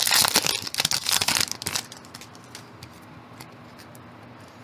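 Foil booster-pack wrapper crinkling and tearing as it is pulled open at its crimped seam, for about the first two seconds. After that it goes quiet apart from a few faint ticks.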